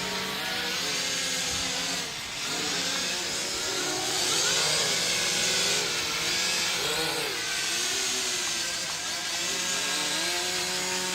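ProMark Shadow GPS quadcopter drone's motors and propellers whining in flight, the pitch rising and falling as the throttle changes. The whine fades away right at the end.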